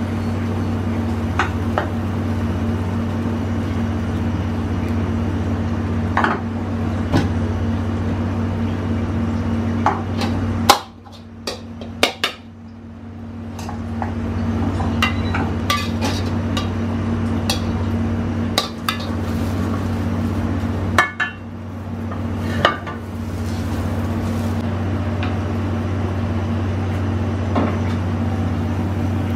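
Metal pans and a metal utensil clanking on a gas range as an omelet and fried rice are cooked, over a steady low kitchen hum. The clanks are scattered and sharp, the loudest about ten seconds in, and the hum briefly falls away just after it.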